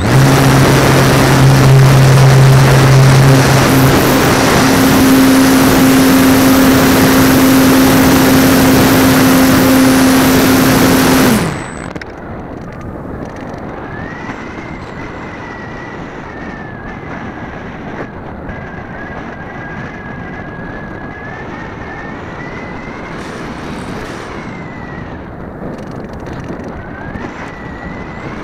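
Model airplane's motor and propeller running at full power for takeoff and climb, close to the onboard camera, stepping up in pitch about four seconds in and cutting off suddenly after about eleven seconds. After that, steady wind rush over the airframe as the plane glides, with a faint wavering whine.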